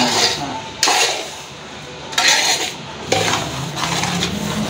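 Metal spatula scraping and stirring a dry semolina-and-sugar laddu mixture around a large metal pot, in about four separate strokes. It is kept moving on a low flame so the mixture does not catch on the bottom.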